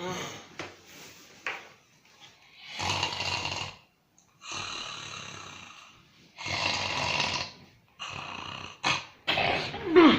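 A man snoring: three long snores of about a second each, one after another. A couple of short knocks follow near the end.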